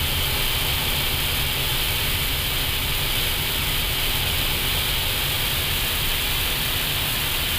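Steady cockpit noise of an Airbus A320 taxiing: an unbroken hiss of air-conditioning and avionics air over a low rumble from the idling engines.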